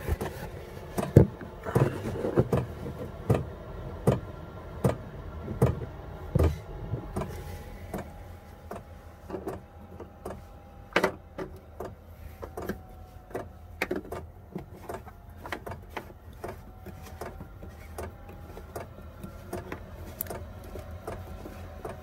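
Chinese diesel heater running in its start-up cycle, its fan giving a steady hum with a faint whine, while its fuel tank is run almost dry, so it is not lighting. Irregular knocks and clicks from handling around it are loudest in the first several seconds.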